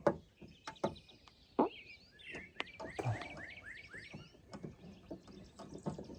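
Scattered sharp clicks and knocks of a car door handle and its parts being handled and fitted into the door, with birds chirping in the background.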